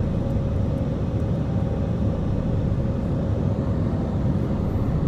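Airbus A320 engines and airflow heard from inside the cabin during the climb after takeoff: a steady, even low rumble with a faint steady hum.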